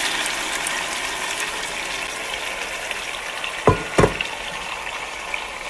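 Shredded chicken and its cooking liquid sizzling in a hot oiled skillet, the sizzle slowly dying down. Two short knocks come about two-thirds of the way through.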